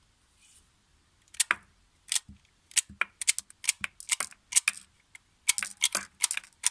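9mm cartridges being pressed one by one into a Glock 17-round pistol magazine: a run of sharp clicks, many in close pairs, starting a little over a second in and coming several a second.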